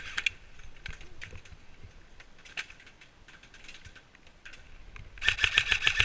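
Scattered sharp clicks and snaps, then about five seconds in a rapid, fast-rattling burst of about a second from an airsoft electric gun (AEG) firing on full auto.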